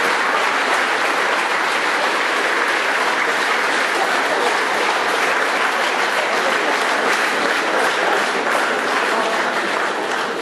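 Audience applauding steadily: a dense, unbroken patter of many hands clapping.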